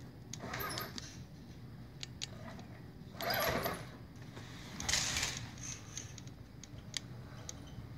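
Axial SCX10 radio-controlled rock crawler's electric motor and gearbox whirring in three short bursts as it is driven, with a few sharp clicks and knocks from the chassis and tyres.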